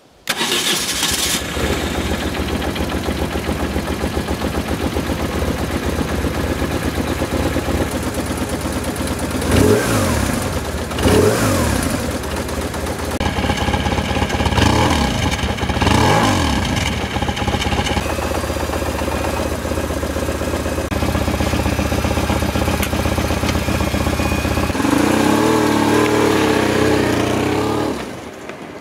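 BMW R1150RT's boxer-twin engine started on the button: the starter cranks briefly and the engine catches within about a second, then idles steadily. A few throttle blips rise and fall in pitch about ten and fifteen seconds in, and near the end the bike pulls away.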